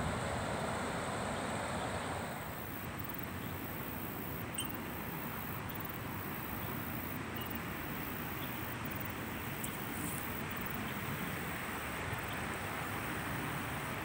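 Steady outdoor rush of strong wind buffeting the microphone, with river water flowing over a weir; about two seconds in it eases slightly and turns duller, with a few faint high ticks.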